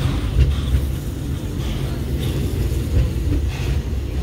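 Steady low rumble of a steam railroad's passenger car rolling along the track, heard from on board.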